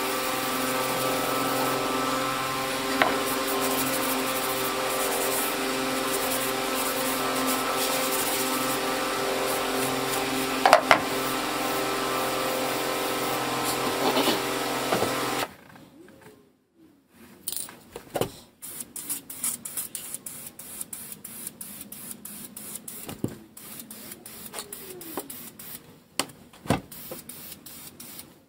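A machine runs with a steady hum for about the first fifteen seconds, then cuts off suddenly. After that come quieter scattered clicks and taps, and near the end the short hisses of an aerosol can spraying clear finish.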